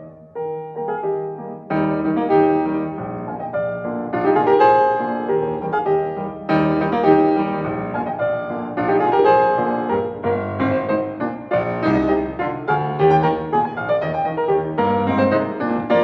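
Background piano music, a melody of notes and chords played one after another.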